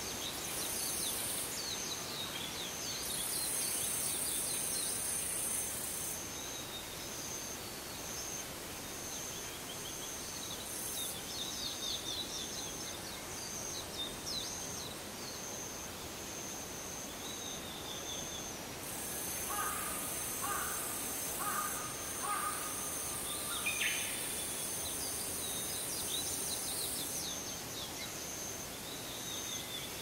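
Evening outdoor ambience by a forest pond: a steady high pulsing insect trill, high-pitched insect buzzing that starts and stops every few seconds, and scattered short bird chirps. A little past the middle, a bird gives a run of four short repeated calls.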